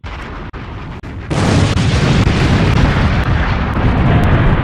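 Explosion: after a quieter noise with a few clicks, a sudden loud blast about a second in that goes on as a continuous heavy rumble.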